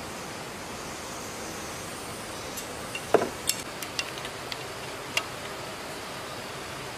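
A handful of sharp metal clinks from a wrench on the bolts of an old diesel engine. The loudest comes about three seconds in with a short ring, and the others follow over the next two seconds, over a steady hiss.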